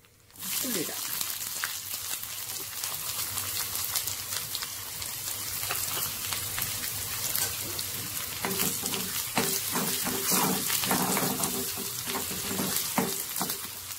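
Chopped onions sizzling and crackling in hot oil in a pan, starting about half a second in. In the last few seconds a spoon stirs them.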